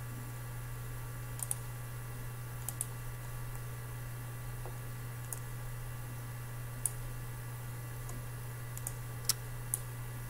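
Computer mouse clicking, about ten scattered sharp clicks, some in quick pairs, over a steady low electrical hum.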